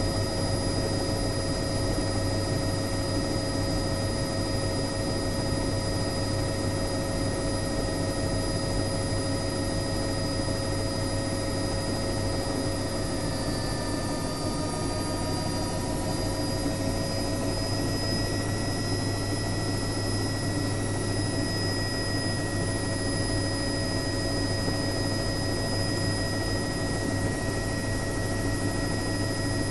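Helicopter running steadily: a constant low rotor drone under a steady high turbine whine, with some of the whine tones shifting slightly in pitch about halfway through.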